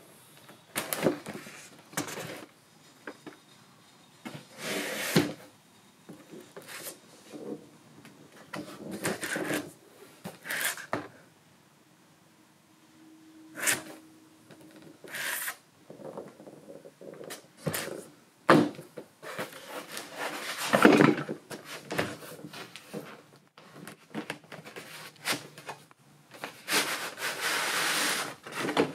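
Cardboard box and foam packaging being handled and opened: scattered knocks, scrapes and rubbing, with quiet gaps between.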